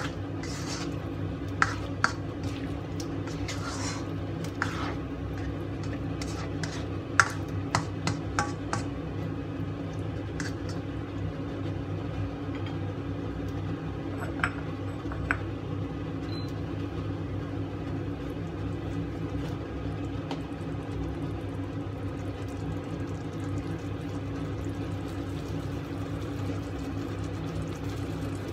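A spatula stirring and knocking against a wok of stir-fried minced meat and eggplant, sharp clicks through the first nine seconds and two more knocks around halfway. After that, the food cooks on in the wok over a steady low hum.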